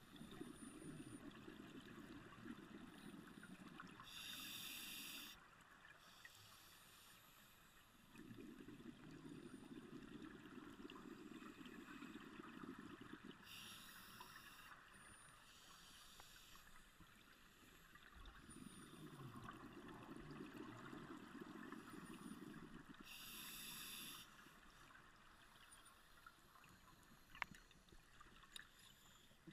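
Scuba diver breathing through a regulator underwater: three breaths, each a few seconds of low bubbling from exhaled air followed by a short hiss of inhalation, about every nine to ten seconds.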